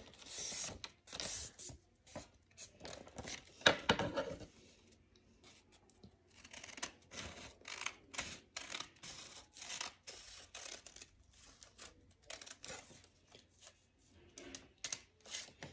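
Scissors cutting strips into a sheet of A4 paper: bunches of short snips, with a short pause about five seconds in.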